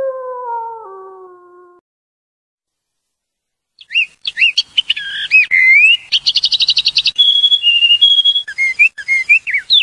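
The end of a wolf's howl, falling in pitch and fading out in the first two seconds. After a short pause, a songbird sings loudly: quick whistled chirps sliding up and down, a fast trill, then a few held whistled notes and more chirps.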